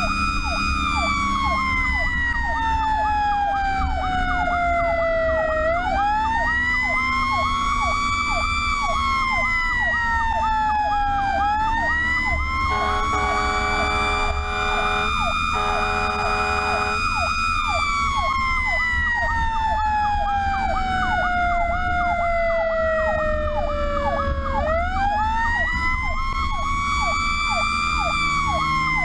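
Fire truck sirens on an emergency run. A wailing siren falls slowly in pitch and is quickly run back up, three times, over a fast electronic yelp. About halfway through come two long horn blasts, all over the low rumble of the truck's engine and road noise.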